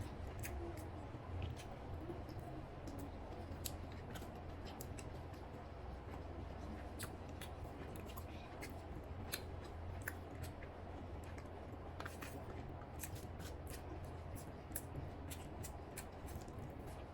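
Close-miked eating sounds of someone chewing chicken biryani: irregular sharp mouth clicks and smacks, over a steady low hum.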